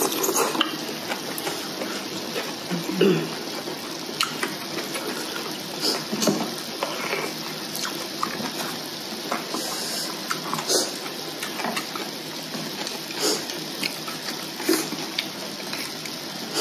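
Hotpot broth bubbling steadily in an electric hot pot, with scattered short clicks and smacks from chopsticks and eating over it.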